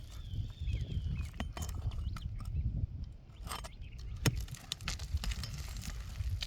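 Scattered sharp clicks, knocks and scrapes of hand tools working asphalt roof shingles, with the loudest knock about two-thirds of the way through, over a steady gusty rumble of wind on the microphone.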